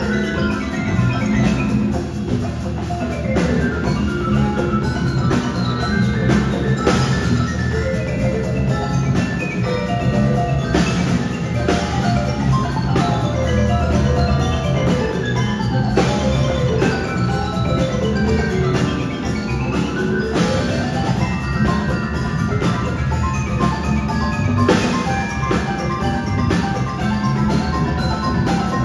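Live percussion ensemble playing: marimbas and other mallet keyboard instruments in quick runs of notes that climb and fall, over a drum kit, congas and a steady bass line.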